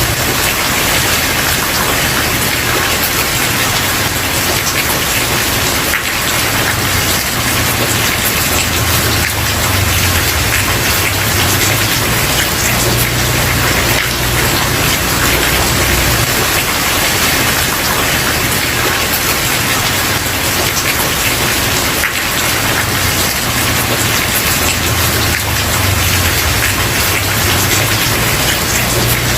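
Steady, dense rain falling on a wooden porch, with a low rumble underneath that swells and fades.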